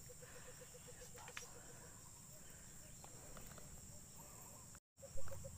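Insects buzzing steadily at a high pitch, with a rapid pulsed call of about six beats a second that stops about two seconds in. Near the end the sound drops out for a moment, then there is a brief low bump.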